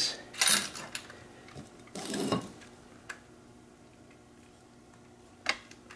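Aluminium antenna elements and plastic clips rattling and clicking as the assembled antenna is handled: a short rattle about two seconds in, then single sharp clicks about three and five and a half seconds in.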